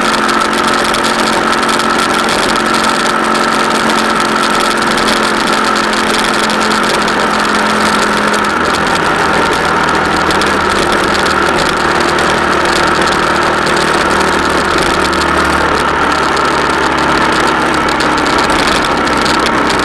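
Vehicle engine running steadily while driving, with road and wind noise and a constant high tone. About halfway through, the engine note drops lower.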